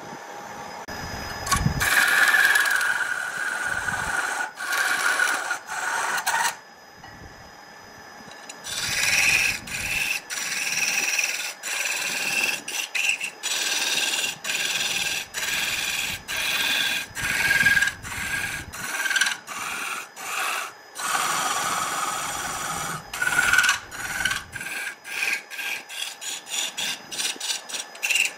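A hand-held tool rasps and scrapes against a wooden blank spinning on a wood lathe, with a whine that wavers in pitch. The scraping starts about two seconds in, drops away for about two seconds near a third of the way through, then resumes, breaking into short quick strokes near the end.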